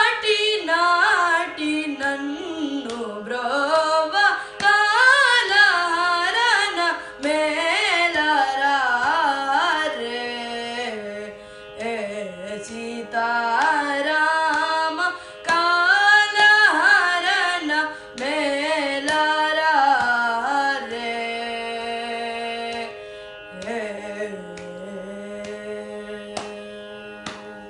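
A boy singing a Carnatic kriti in raga Suddha Saveri, with fast ornamented turns between notes over a steady drone; near the end he settles into a long held low note.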